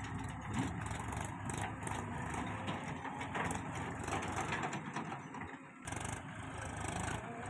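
Diesel engines of a JCB 3DX backhoe loader and a Mahindra tractor running, the tractor with its loaded trolley driving in close.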